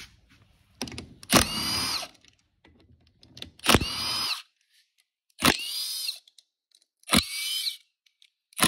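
Milwaukee Fuel cordless ratchet backing out transmission case bolts: five short bursts of motor whine every couple of seconds, each starting with a sharp click.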